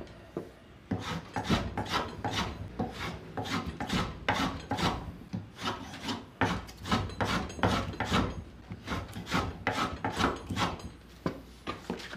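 Hand plane shaving a chamfer along a cambará wood table leg in quick, short strokes, about three a second, with a brief pause just under a second in.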